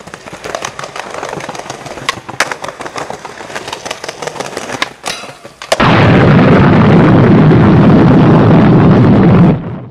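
Skateboard wheels rolling over rough street pavement, with sharp clicks as they cross cracks and joints. About six seconds in the rolling turns suddenly much louder and harsh, overloading the microphone riding close to the board, then cuts off.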